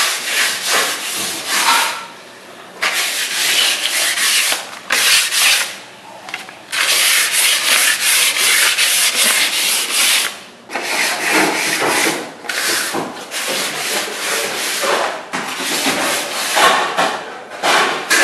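Sandpaper rubbed by hand around the inside of a VW Variant's brake drum, in runs of quick back-and-forth strokes with short pauses, to clean the drum surface so the seized brake will free up.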